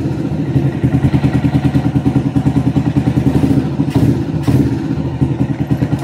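Yamaha automatic scooter's single-cylinder engine idling steadily with an even pulsing beat, warmed up. Two light clicks sound about four seconds in.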